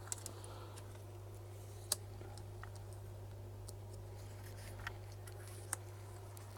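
A few faint, sharp single clicks of small tools being handled on a repair bench, scattered over a steady low hum.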